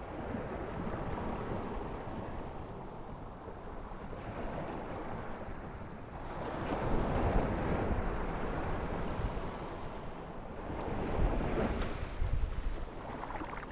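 Ocean surf: waves washing on a shore, with two louder swells, about six seconds in and again about eleven seconds in.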